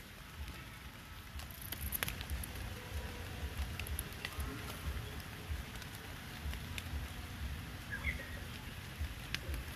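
Faint outdoor background: scattered light ticks and patter over a soft low rumble.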